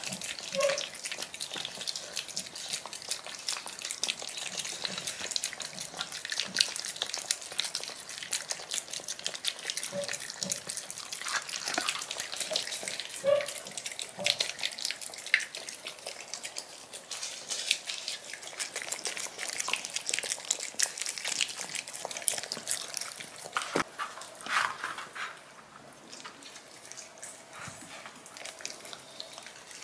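Puppies eating soaked kibble from a shared bowl: a dense, continuous run of wet smacking, chewing and lapping, with a few brief squeaks. It gets quieter near the end as they lick the emptied bowl.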